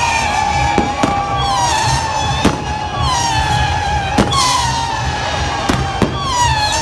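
Whistling fireworks going off from a burning torito, a pyrotechnic bull frame. Overlapping shrill whistles slide down in pitch one after another, with sharp pops every second or so.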